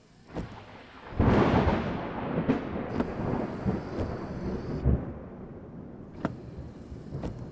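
A clap of thunder about a second in, rumbling on and slowly fading over several seconds, over rain falling on a car roof, with a few sharp taps.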